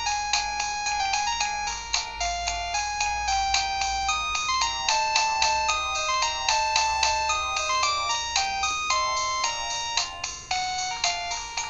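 Modottel WTE-300 mobile phone playing a 16-voice polyphonic MIDI ringtone: a quick melody of short, bright notes, several at once, with no bass.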